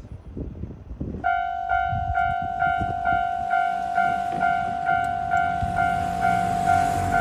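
Japanese railway level-crossing warning bell starts about a second in, after low rumbling noise. It rings one pitched 'kan-kan' tone that strikes steadily about twice a second, the signal that a train is approaching.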